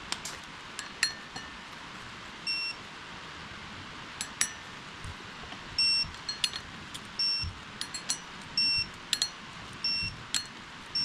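Digital torque wrench beeping in short, high-pitched tones again and again as the flywheel bolts reach the set torque of 95 foot-pounds. Sharp ratchet clicks come between the beeps.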